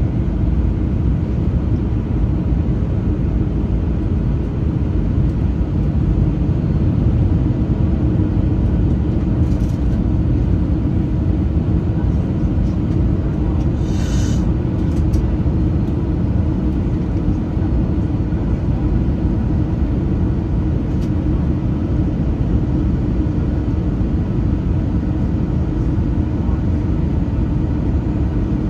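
Steady low rumble of an Airbus A321-231 cabin in flight on its approach, the airflow and IAE V2500 turbofan noise heard from inside. About halfway through there is a brief sharp click.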